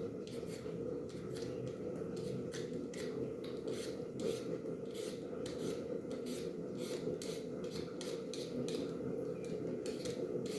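Knife peeling potatoes: repeated short scraping strokes, a few a second, over a steady low hum.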